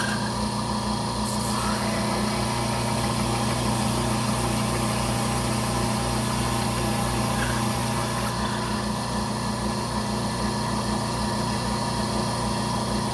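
Belt sander running steadily, grinding a green bone knife scale down to the liner.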